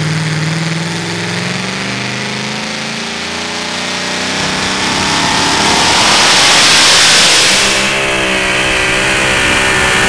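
Supercharged engine of a super modified two-wheel-drive pulling truck, running low and uneven at first, then revving up about four seconds in and staying at high revs under load as the truck pulls the sled.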